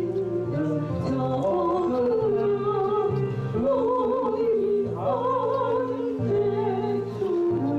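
Korean hymn sung with wide vibrato over a backing track of sustained chords.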